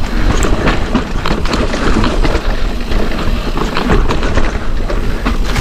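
Wind noise on an action camera's microphone, with the tyres and frame of a mountain bike rattling and knocking over rocks in quick, irregular clicks while riding a rocky technical trail.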